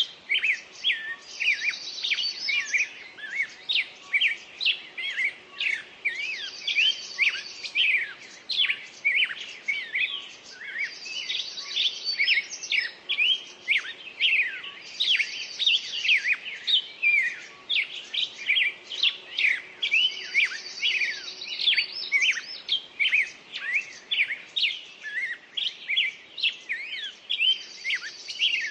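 Several birds singing together: dense short chirps, with one high trilled phrase repeating about every four to five seconds.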